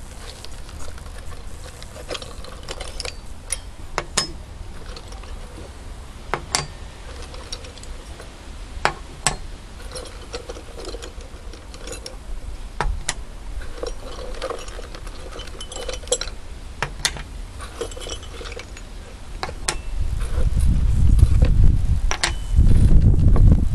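Leather belt pouch being handled: scattered clicks and clinks of its metal buckle and of small items being put inside it. A louder low rumble comes in near the end.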